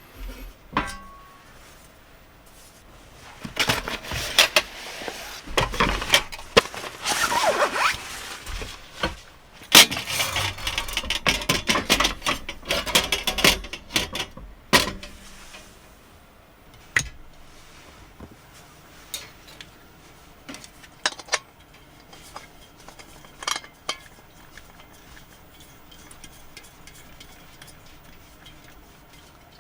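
Dishes and utensils being handled: a busy stretch of clinking, clattering and rustling in the first half, then occasional single clinks and taps.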